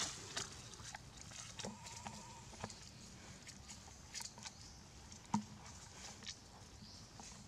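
Young macaques moving over tree roots and dry leaves: faint scattered rustles and taps, with one sharper tap about five seconds in. A short, high, wavering call sounds about two seconds in.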